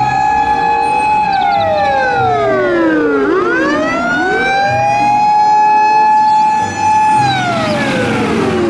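Japanese fire engine's siren wailing: a long steady high tone slides down over about two seconds, a second wail following slightly behind, then climbs back up and holds before starting to fall again near the end.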